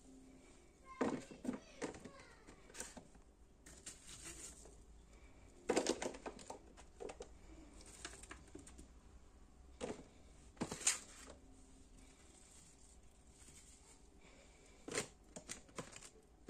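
Thin clear plastic clamshell container clicking and crinkling as pieces of diced fruit are dropped into it, in scattered sharp clusters of clicks.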